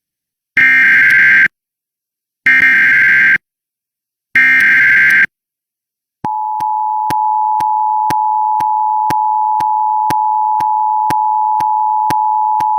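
Emergency Alert System alert opening: three short, harsh, buzzing data bursts of the SAME header, each just under a second, then about six seconds in the steady two-tone EAS attention signal begins and holds.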